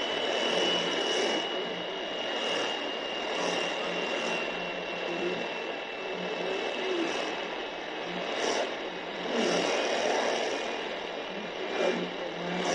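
Retekess V115 portable radio's speaker playing a weak shortwave signal on 11780 kHz: mostly steady hiss and static, with a faint whistle that drifts slowly lower. A signal the V115 struggles to pull in.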